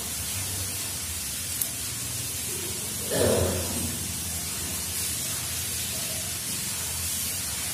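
Steady background hiss with a low hum beneath it, and one brief louder sound about three seconds in.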